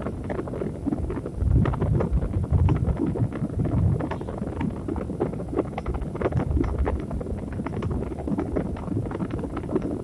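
Steady noise from a relaxation track: a low rumbling hiss thick with small crackles and pops. The rumble swells louder for a moment a few times, around the second and fourth seconds and again near the seventh.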